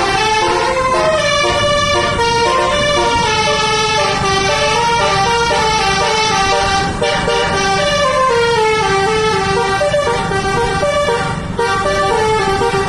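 Basuri multi-tone air horn on a tourist bus playing a quick melody, note after note with barely a gap, over the low rumble of the running bus. The horn breaks off briefly about seven seconds in and again near the end before carrying on.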